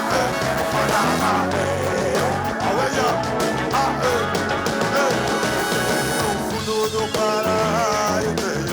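Live band playing a song, with a melodic line over bass and drums.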